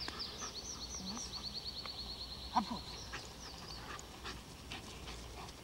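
Small birds singing in the woods, one giving a fast run of repeated high chirps over the first few seconds. A dog lets out a few short rising whines, the loudest about two and a half seconds in.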